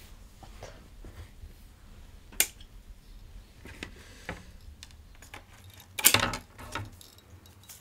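Bamboo leaves being handled and trimmed with scissors: a sharp snip about two and a half seconds in and a louder crisp crackle about six seconds in, with faint small clicks between.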